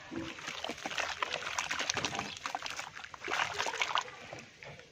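Hands sloshing and squishing muddy sludge in a plastic basin of water, with irregular wet splashes and crackles that die down near the end.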